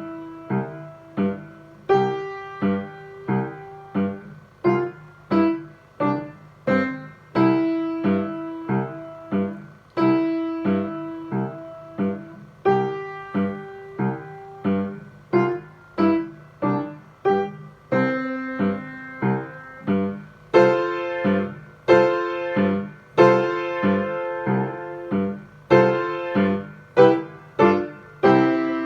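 Piano playing a beginner lesson piece at a slow, steady tempo: a light staccato left hand anchored on low C under a right-hand melody, with fuller, louder chords in the last third.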